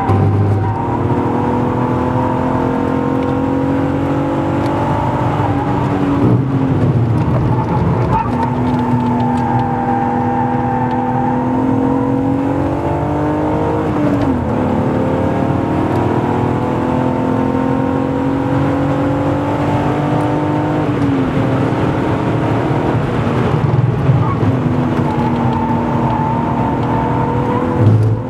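BMW E36 328i's 2.8-litre straight-six, fitted with an M50B25 intake manifold, run hard on track, heard from inside the cabin. The engine note climbs steadily for several seconds at a time and drops sharply about 6, 14 and 21 seconds in, with another rise and fall near the end.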